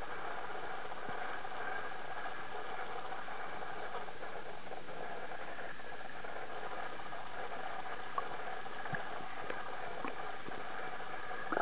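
Steady rushing ambience of an indoor pool hall with a faint hum, and a few light clicks and taps.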